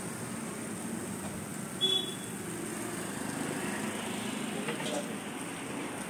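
Steady street-side background noise with a brief sharp clink about two seconds in.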